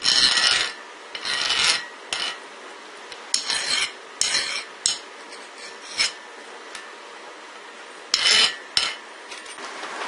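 Hand file scraped across the freshly quenched steel of a cross peen hammer head in a file test, in about nine short, uneven strokes; the steel has hardened very well.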